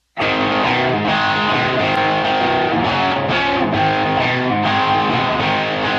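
Background music: guitar-led instrumental with distorted electric guitar.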